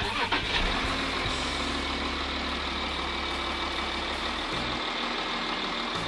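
Volkswagen Touareg engine idling steadily with the hood open.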